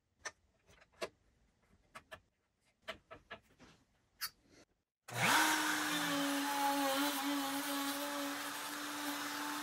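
A handful of light clicks and taps from a marking tool against the aluminium centering bar. About five seconds in, the PantoRouter's router switches on: its motor spins up in a moment to a steady whine, over a loud rush of air and dust extraction.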